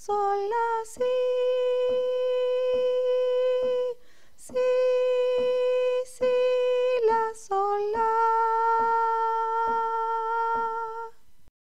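A woman singing the melody in solfège, holding long notes at a steady pitch and stepping between a few neighbouring notes, over a soft tick marking the beat.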